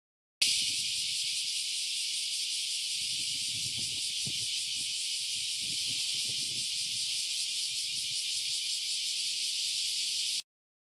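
Dense summer chorus of bear cicadas (kumazemi): a steady, high, shrill buzzing with a fine pulsing to it. It starts abruptly about half a second in and cuts off abruptly shortly before the end.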